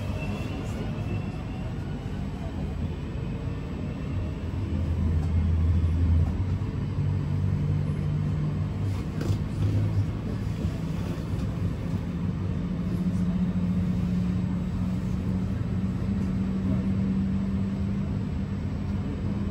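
Class 323 electric multiple unit heard from inside the passenger saloon while under way: a steady rumble of wheels on track, with a low drone from the traction equipment that climbs in pitch in steps as the train gathers speed.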